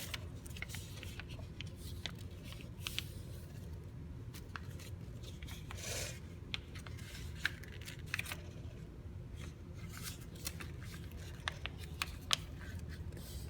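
A square sheet of paper being folded and creased by hand: scattered small crinkles, taps and short rustles, with a slightly longer rustle about halfway through.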